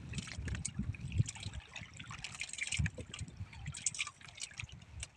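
Sea water lapping and trickling against the hull of a small outrigger boat, with small irregular splashes and soft knocks.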